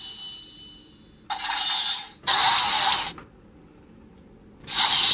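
Edited attack sound effects for a Decade-style henshin belt's 'Aura slash' finisher: a high ringing fading out, then three short hissing slash bursts, each under a second, the last near the end.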